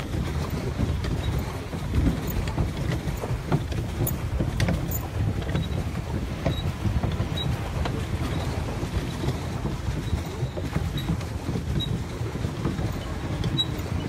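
A boat moving over lake water: a steady, uneven low rumble with wind buffeting the microphone.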